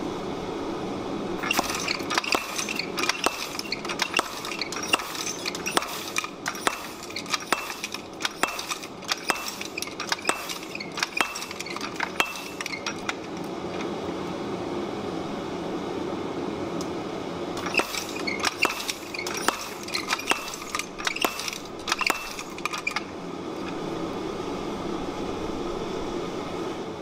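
Air-assist treadle hammer repeatedly striking a hot copper-nickel mokume gane billet of forge-welded quarters on an anvil: a long run of rapid, ringing metal blows starting about a second and a half in, a pause of a few seconds, then a second shorter run. A steady drone runs underneath.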